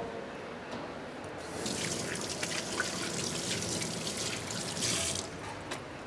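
Kitchen tap running into a sink: water starts about a second and a half in, runs steadily for about three and a half seconds, and is shut off near the end.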